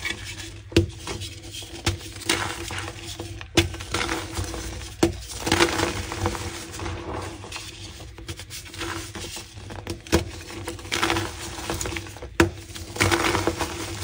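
Pink gym chalk crunching and crumbling, with sharp snaps every second or two between bursts of gritty crumbling.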